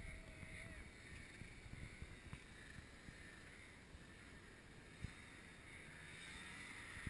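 Near silence with faint wind, then a distant two-stroke snowmobile heard approaching, its engine growing louder over the last second or two. One faint click about five seconds in.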